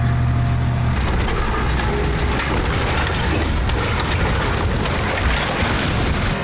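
Heavy machinery working through demolition debris: a dense rumble with many knocks and clatters, starting about a second in.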